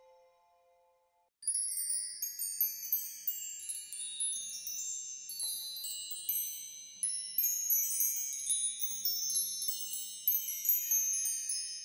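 The tail of a lower ringing note fades out in the first second; then, about a second and a half in, high-pitched chimes start ringing, many overlapping strikes at irregular intervals, each note ringing on.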